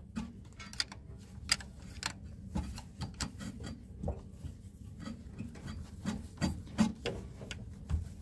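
Irregular small metallic clicks and taps of a wrench working the connecting-rod cap nuts at the bottom end of a VW Golf 2 engine, sump removed.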